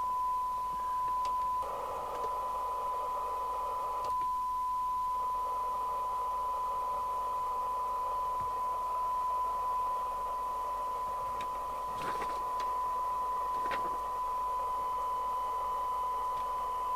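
Steady 1 kHz test tone with hiss from a Radiomobile CB202 FM CB receiver's audio output. The receiver is being fed a weak test signal for a 12 dB SINAD sensitivity measurement, which comes out at 0.4 microvolts. The hiss around the tone rises about two seconds in, dips briefly a couple of seconds later, then holds steady.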